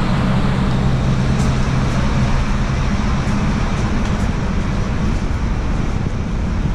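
Steady street traffic noise with the low, even hum of a large vehicle's engine, which fades out about halfway through.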